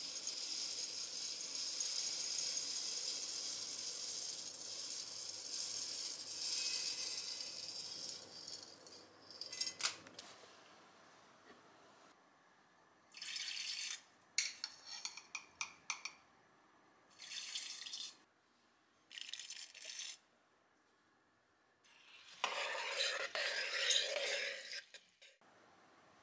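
Kitchen handling of roasted brown rice and a clip-top glass jar: a steady rushing hiss for about ten seconds, then a series of short rattling, clinking bursts, the loudest one near the end.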